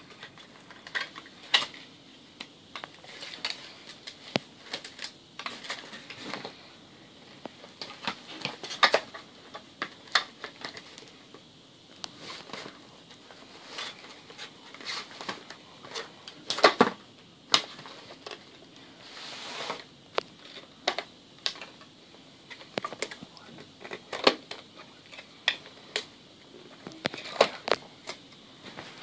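Small plastic toy pieces being handled, clicking and tapping against each other at an irregular pace, with some light rustling.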